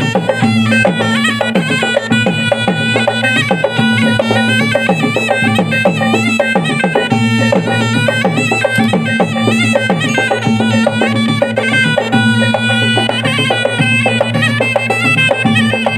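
Tunrung pamanca, the South Sulawesi traditional ensemble played for pencak silat: gendang drums beating a dense, lively rhythm under a reedy shawm (puik-puik) playing a wavering melody over a steady drone.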